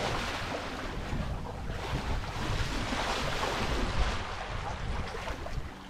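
Water rushing and splashing along the bow of a sailing trimaran's hull as it cuts through the waves under sail, with wind buffeting the microphone. A brief louder knock comes about four seconds in.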